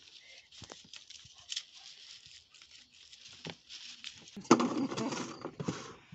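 Dry stems, leaves and papery bulb skins rustling and crackling as bulbs are cleaned by hand, with a louder stretch of rustling and handling noise about two-thirds of the way through.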